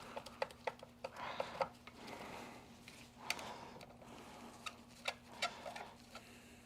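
Light clicks, taps and short scrapes of the vacuum cleaner's Bakelite parts being handled and fitted together by hand, in irregular bunches.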